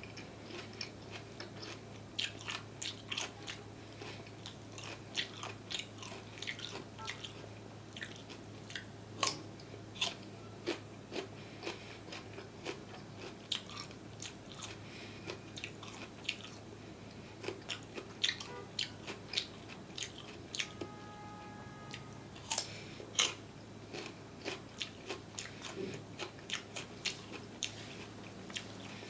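Close-miked chewing and biting of crunchy food, with many sharp crunches and wet mouth clicks coming several a second, over a steady low hum.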